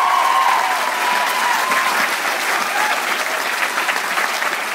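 Theatre audience applauding the cast, a dense, steady clapping, with a few cheering whoops that fade out about two seconds in.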